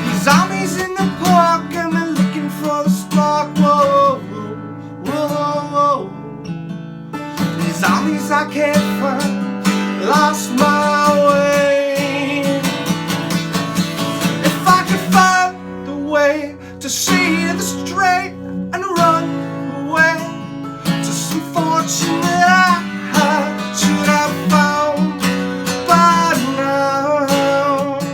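Acoustic guitar strumming chords in a steady rhythm, with a voice singing a melody over it at times.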